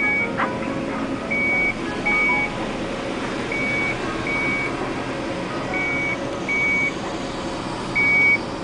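Komatsu PC200 excavator's motion warning alarm sounding as the machine moves: short high beeps in pairs, the pair repeating about every two seconds, over the steady running of its diesel engine.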